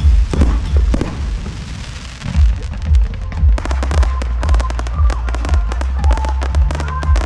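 Fireworks going off in rapid succession, deep booms mixed with many quick pops, while music plays; a melody line comes in about halfway through.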